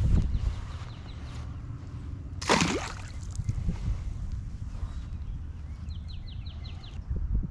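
A Ned rig cast into a pond: one quick splash about two and a half seconds in as the lure hits the water, over a low rumble of wind on the microphone.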